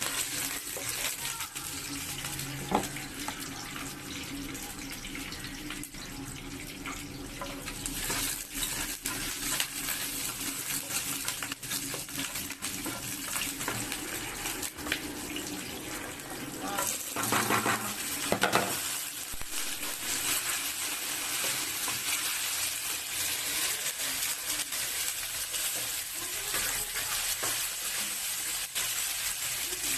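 Shallots and garlic sizzling in hot oil in a granite-coated wok, a steady hiss that gets louder about eight seconds in, with a brief louder flare-up around seventeen seconds. Near the end a spatula scrapes and stirs the pan.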